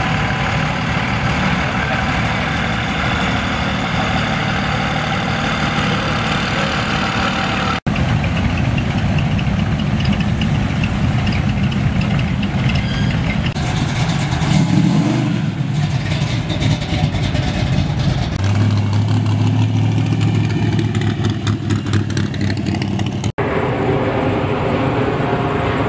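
Engines of old rat rod trucks driving slowly past, heard in three short clips one after another, each a steady engine rumble. From about 18 s to 23 s there is a strong steady low drone.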